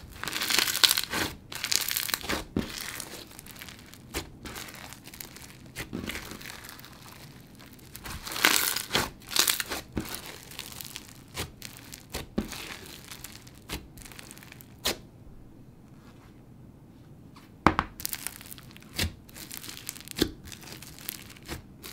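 Clear bingsu slime packed with crunchy bingsu beads being stretched, squeezed and poked by hand: dense crunchy crackling with sharp clicks and pops. There are louder bursts near the start and about halfway, a quieter spell about three quarters through, then one sharp snap.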